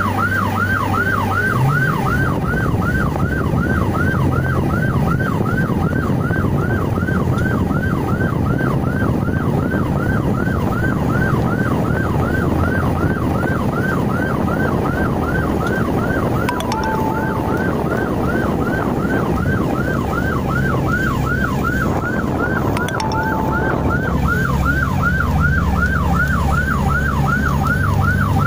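Emergency-vehicle siren in a fast yelp, rising and falling about three times a second without a break, over the low rumble of engines and road noise in slow traffic.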